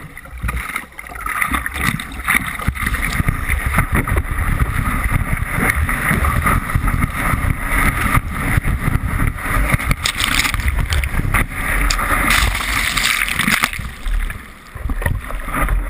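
Sea water rushing and splashing around a surfboard as it is paddled and ridden through breaking whitewash, heard through a GoPro's waterproof housing, with wind buffeting the microphone.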